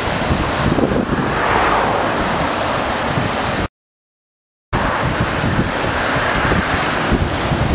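Strong wind buffeting the microphone over rough sea surf washing up the beach, the rush of the waves swelling twice. The sound cuts out completely for about a second in the middle.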